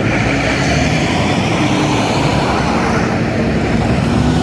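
2023 New Flyer XE40 Xcelsior CHARGE battery-electric city bus driving by at low speed, its electric drive giving a steady whine over the constant noise of city street traffic.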